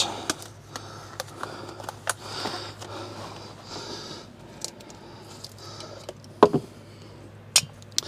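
Handling noise of white PVC pipe fittings being picked up and set down by gloved hands on a towel: light clicks and knocks of plastic with soft rustling, a louder knock about six and a half seconds in and a sharp click near the end.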